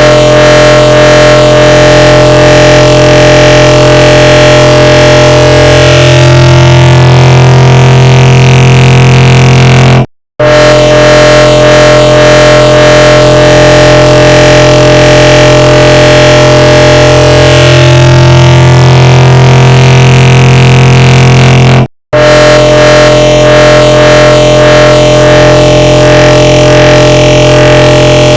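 The 'bruh' sound effect stacked on itself countless times, fused into a very loud, distorted droning wall of sound. It loops about every twelve seconds, with brief cuts to silence about 10 and 22 seconds in.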